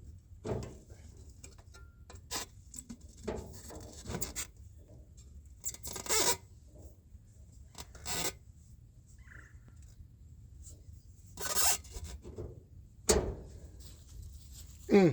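Irregular scraping and rubbing, about eight short bursts, as a cold air intake tube is worked into place against engine-bay parts to check whether it clears the alternator.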